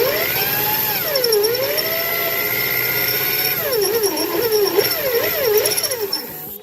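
Electric drill boring into the riveted metal bracket of a car's hood-strut mount, the motor whine rising and dipping in pitch as the bit bites and the trigger is eased, then stopping abruptly.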